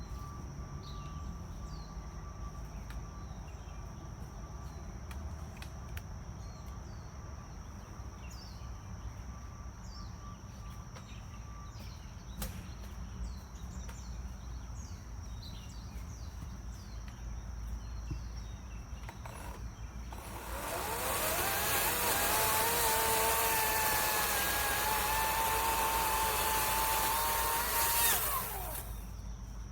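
Crickets chirping steadily. About twenty seconds in, an EGO POWER+ 16-inch battery-powered chainsaw spins up quickly, runs for about eight seconds with a steady whine, then stops abruptly.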